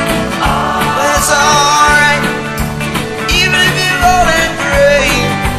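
Rock song playing, a melodic lead line over a steady bass and drums.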